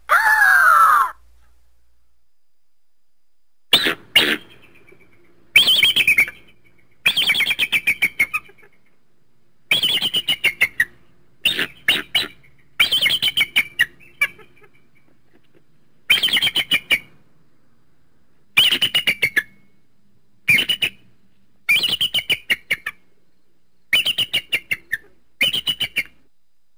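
Eagle calling: a harsh scream that slides down in pitch ends about a second in. After a short pause come about a dozen bursts of fast, high chattering notes, each burst about a second long.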